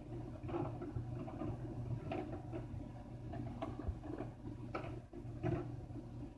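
Faint scattered rustles and light taps of handling close to the phone's microphone, about one a second, over a steady low hum.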